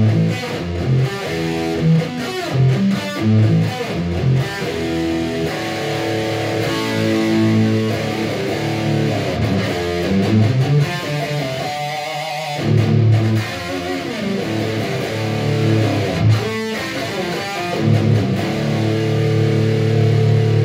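Les Paul Custom-style electric guitar being played: a run of single notes and short riffs, with a wavering vibrato note about twelve seconds in and a long held note near the end.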